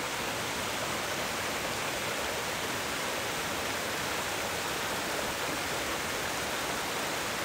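Creek water pouring over boulders in a small waterfall, a steady rushing splash.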